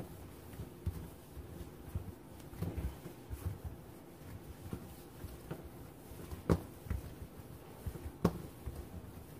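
Hand-kneading of soft, tacky flour tortilla dough on a bare countertop: irregular soft thuds and pressing sounds as the dough is pushed, folded and turned, with two sharper knocks in the second half.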